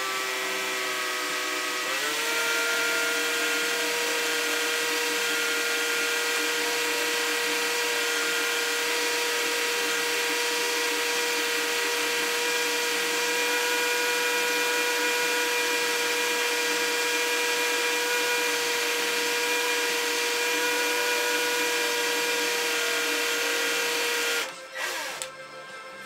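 Cordless drill boring into the steel end of a hydraulic cylinder: a steady motor whine that steps up in pitch about two seconds in, runs evenly, and stops shortly before the end. The hole is being drilled to reach and drive out a retaining clip rusted into its groove.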